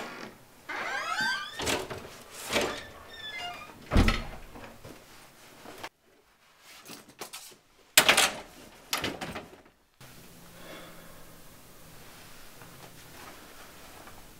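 Apartment front door opening with squeaky hinges, then shutting with a heavy thud about four seconds in. A brief clatter follows around eight seconds, then quiet room noise.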